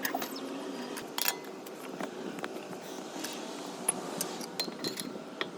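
A vehicle engine running steadily, with scattered light clicks and small rattles over it.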